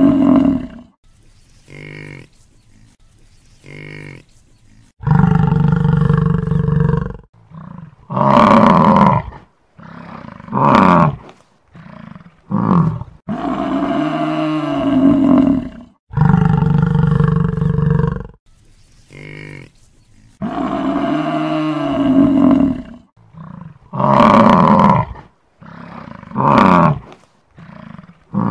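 Buffalo calling: a series of loud, drawn-out bellows of two to three seconds each, mixed with shorter calls and brief pauses between them.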